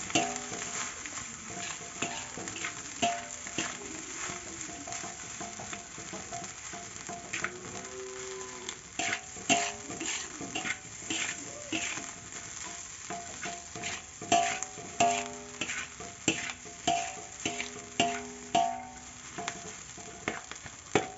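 Fried rice being stir-fried in a steel wok: a metal spatula scrapes and knocks against the pan again and again in an irregular rhythm, over the sizzle of the rice frying.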